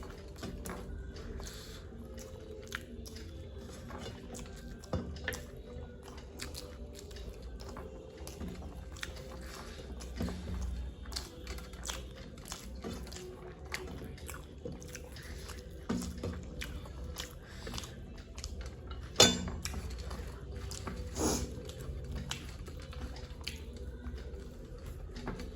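People chewing and crunching mouthfuls of puffed rice (muri), with many small crisp clicks throughout and one sharp knock about two-thirds of the way through.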